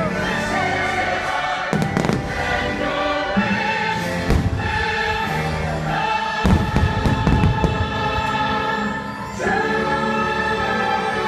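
Fireworks show soundtrack with a choir singing over the music, heard outdoors at a loud level, with firework bursts banging through it: one around 2 s in, another around 4.5 s, and a quick cluster of bangs from about 6.5 to 7.5 s. The music drops briefly and swells back up near the end.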